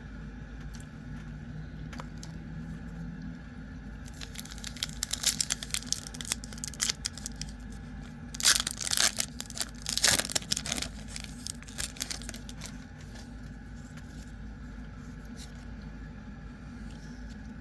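Foil trading-card booster pack wrapper being torn and crinkled by hand: several seconds of sharp crackling rustles, loudest in two bursts near the middle, over a steady low hum.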